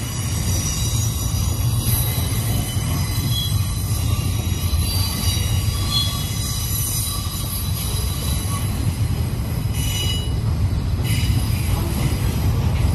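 Double-stack intermodal container cars rolling past: a steady low rumble of steel wheels on rail, with thin high wheel squeal over it. A few sharp clicks come near the end.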